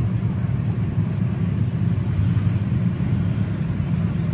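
A steady low rumble that wavers slightly in loudness, with no distinct strokes or tones.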